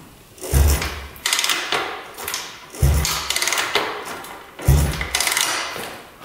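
A 1974 Honda CB360's kick-starter kicked three times, about two seconds apart. Each kick is a thump followed by the parallel-twin engine turning over briefly with a fading rattle, without firing. The engine has compression.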